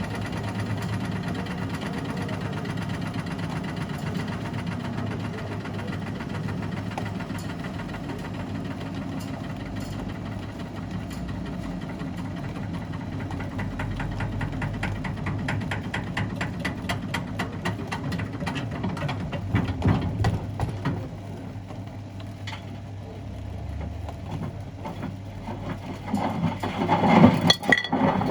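Miele washing machine running with wood and stones tumbling in the drum: a steady motor hum with rapid knocking and rattling from the load. The rattling dies down about two-thirds of the way through, then a louder clatter comes near the end.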